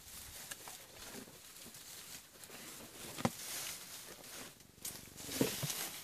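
African elephants feeding and walking through dry grass and bush close by: faint rustling with a few sharp clicks, one about three seconds in and another near the end.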